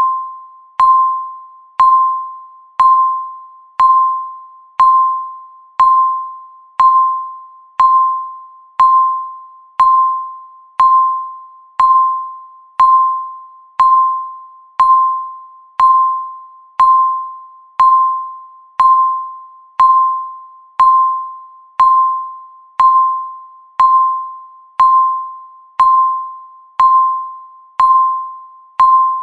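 Countdown timer beep repeating once a second: a single tone of about 1 kHz, each one starting with a click and fading away before the next, marking each passing second.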